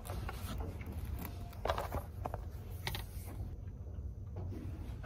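Handling noise close to the microphone as a knit sweater sleeve and arm brush past it: light rustling over a low steady rumble, with several sharp clicks and creaks, the loudest cluster a little under two seconds in.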